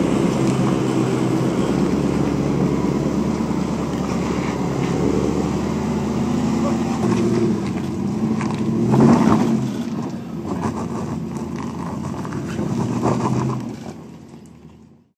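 Supercharged 5.0-litre V8 of a Land Rover Defender running at low revs as the SUV crawls up over rocks, with a louder surge about nine seconds in; the sound fades out near the end.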